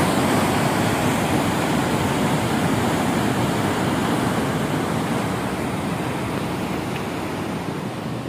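Muddy floodwater released from a dam rushing and churning in a steady torrent below the dam wall, growing somewhat quieter over the last few seconds.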